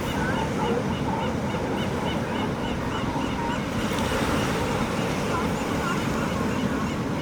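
Ocean surf washing steadily, with a crowd of birds calling over it: a fast run of short high calls through the first two seconds, then scattered calls.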